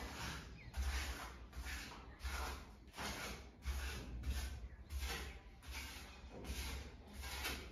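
Plastering trowel scraping over wet plaster on a wall in repeated strokes, about one stroke every 0.7 seconds.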